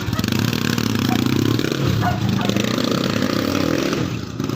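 Honda 125 motorcycle's single-cylinder four-stroke engine running through a hollowed-out 'kalkal' exhaust pipe, its pitch rising and falling with light throttle and dipping briefly near the end.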